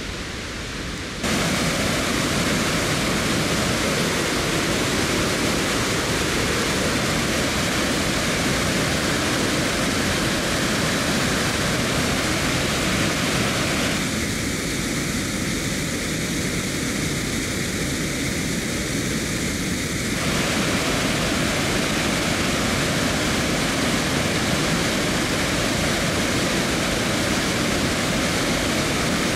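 Floodwater pouring over the rim of a full reservoir's bellmouth overflow spillway and down its shaft: a steady, heavy rush that starts about a second in, its tone shifting for a few seconds midway.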